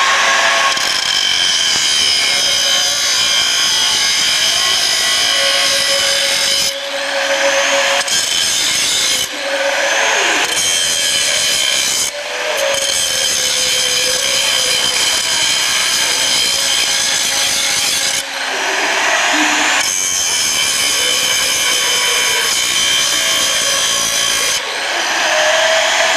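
Angle grinder grinding steel: a loud, harsh, continuous grinding with a high whine, dipping briefly about five times.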